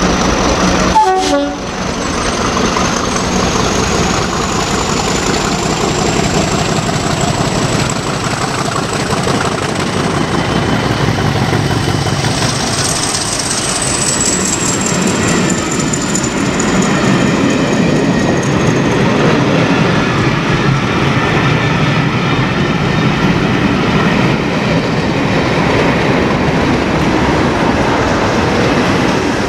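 A diesel-hauled charter passes through a station: the Class 50 locomotive gives a short horn toot about a second in, then a long train of coaches rumbles and clacks by. A high whine rises in pitch, peaks about halfway through and slowly falls away, and the Class 37 diesel on the rear passes near the end.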